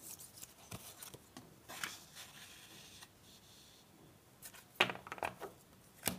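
Paper oracle cards being handled and a card laid down on a cloth-covered table: soft rustling and a few light taps, the sharpest near the end.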